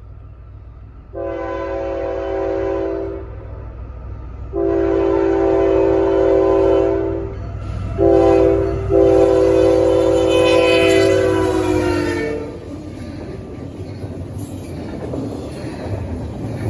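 CSX diesel locomotive's multi-chime air horn sounding the grade-crossing signal: two long blasts, a short one and a long one, the last dropping in pitch as the locomotive passes, over a steady low engine rumble. Then the clatter and rumble of double-stack intermodal cars rolling past on the rails.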